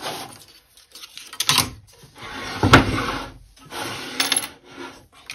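Hands handling cables and metal machine parts: scraping and rustling, with several sharp metallic clinks. The loudest clink comes a little past the middle.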